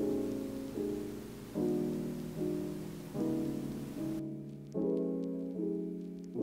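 Background music of soft struck chords, a new chord about every 0.8 seconds, each fading before the next.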